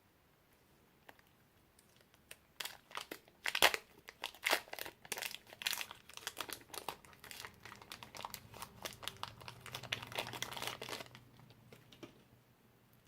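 Slime mixed with magic clay being squeezed and kneaded by hand, giving a dense run of crackling, popping clicks that starts about two seconds in and dies away near the end.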